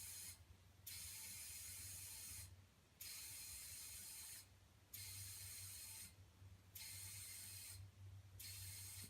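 Faint air hissing in regular bursts about a second and a half long, roughly every two seconds, as a freshly plugged tire is pumped back up, over a low steady hum.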